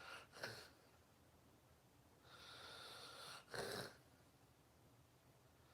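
A sleeping person's faint snoring breaths: a short breath near the start, then a long hissing breath with a thin whistle in it, ending in a short, louder puff about three and a half seconds in.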